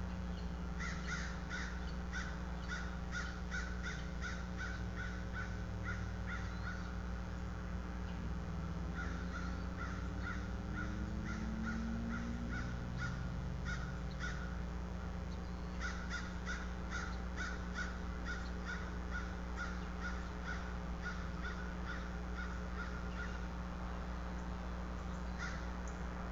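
Crows cawing off-camera in long runs of short caws, about two a second, in three bouts separated by short pauses, over a steady low hum.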